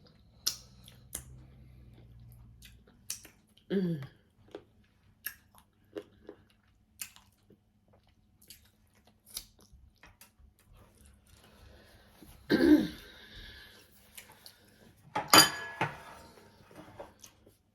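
Close-up mouth sounds of people chewing tilapia fish eaten with its bones, with scattered wet clicks and smacks. Two louder short throat or voice sounds break in, one about two-thirds through and the loudest near the end.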